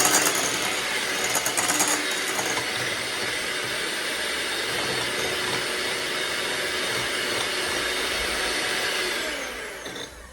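Electric mixer running steadily, whipping egg whites with lemon juice, with a louder rattling stretch in the first two seconds. Near the end it is switched off and winds down with a falling pitch.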